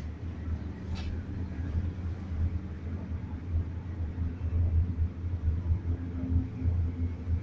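Low steady rumble inside a moving cable car cabin, with a short click about a second in and a faint hum joining near the end.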